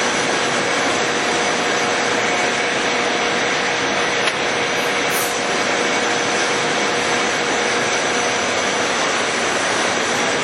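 Monarch 20CM heavy-duty engine lathe running under power with its spindle turning: a steady whir with faint steady tones, and one small click about four seconds in.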